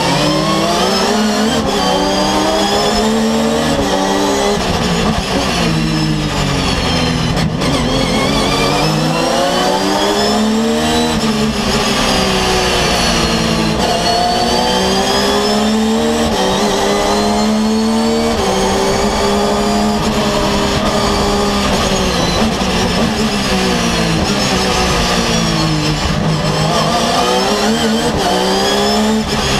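Porsche 911 GT3 R race car's flat-six engine heard from inside the cockpit at racing speed, its pitch climbing through each gear and dropping back at every upshift, then falling away in runs of downshifts under braking for the corners, over and over.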